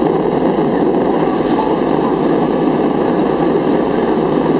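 Steady noise of a Boeing 737-400's CFM56-3 turbofan engines and airflow, heard inside the passenger cabin during the climb after takeoff.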